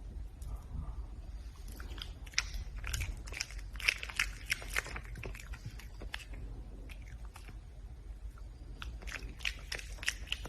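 Red panda eating, biting and crunching its food in quick, crisp chews that come in two runs with a quieter gap between them.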